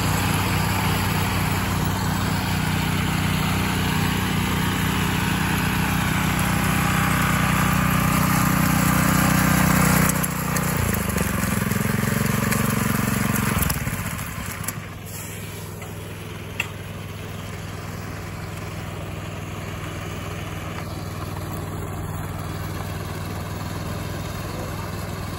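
Concrete power trowels running steadily on their petrol engines. The sound is loud and close for about the first ten seconds, a different engine note follows for a few seconds, then a fainter, more distant hum from about fourteen seconds in.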